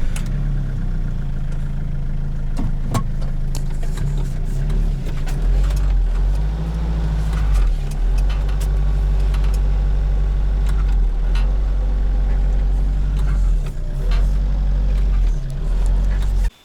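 Hyundai Porter light truck's diesel engine running steadily with a deep low hum whose pitch shifts in steps several times, with a few light clicks. The engine cuts off sharply near the end.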